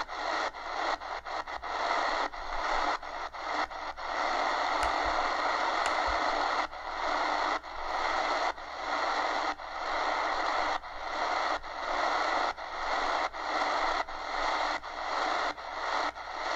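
Shortwave static hissing from the speaker of an Eton Grundig Executive Satellit portable radio as it is tuned step by step up the 80-metre band in AM, with no station coming through. The hiss cuts out for an instant at each tuning step: rapidly for the first few seconds, then about once a second.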